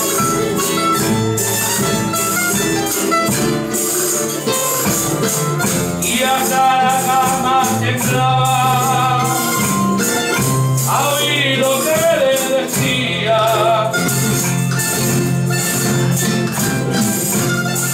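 Live Canarian parranda folk music: voices singing in phrases over instrumental accompaniment, with a tambourine keeping a steady beat.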